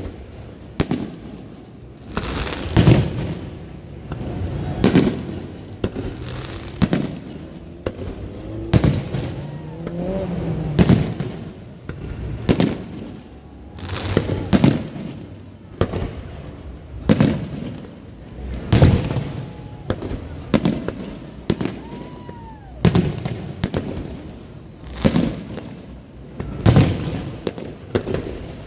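Aerial fireworks shells bursting, a loud boom every second or two with crackle between, and a few whistling rises and falls.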